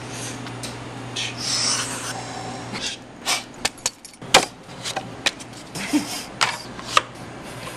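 Handling noise from paper and plastic packaging: a rustle, then a scattered series of sharp clicks and taps, over a steady low electrical hum.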